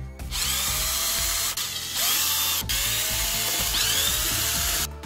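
Cordless drill-driver running in spells as it backs the screws out of a plastic battery pack case, its motor pitch rising and falling, with a short break about halfway through.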